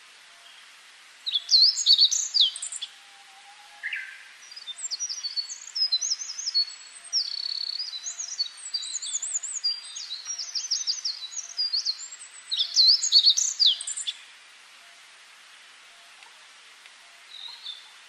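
A songbird singing close by: a long, varied song of quick whistled glides and trills that starts about a second in and stops about fourteen seconds in, over a faint steady hiss.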